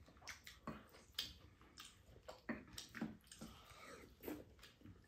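Faint eating sounds: chewing and mouth noises with soft clicks of chopsticks against ceramic bowls, an irregular scatter of short sharp sounds.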